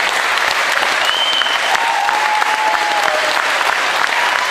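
Crowd applauding steadily, with a few high whistles held over the clapping.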